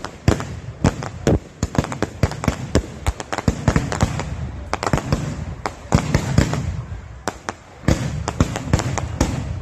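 Fireworks display: many sharp bangs in quick, irregular succession, several a second, over a low rumble.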